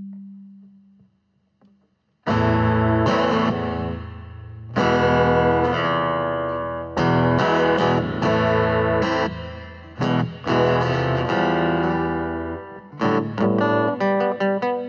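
A low tone dies away, then about two seconds in an electric guitar comes in loud with distortion, playing held chords. Near the end the chords become short and choppy.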